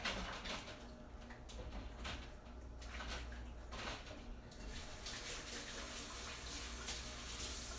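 Water running from a kitchen tap as hands are washed under it: uneven splashing with a few light knocks at first, then a steady rush of water from about four and a half seconds in.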